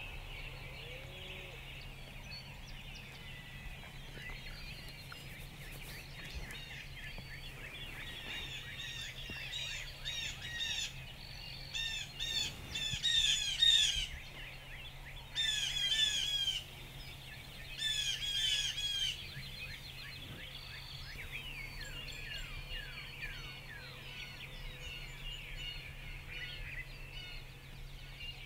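Songbirds singing in the dawn chorus. Several times in the middle, a nearer bird sings loud bursts of fast, falling chirped notes.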